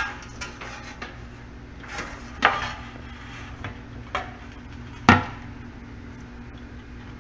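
Sheet-metal parts of a toaster oven being handled: four scattered clanks and knocks, the loudest about five seconds in, over a faint steady hum.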